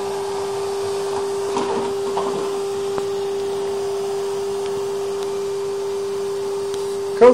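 Vacuum cleaner running steadily: a constant motor hum with one held tone over an even hiss.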